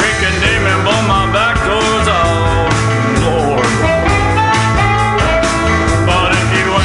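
Rock song with a vocal line over guitar, bass and drums.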